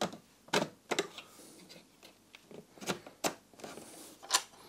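About six sharp clicks and taps, spaced irregularly, as a circuit board is pushed and seated back into the plastic housing of a BMW E30 instrument cluster.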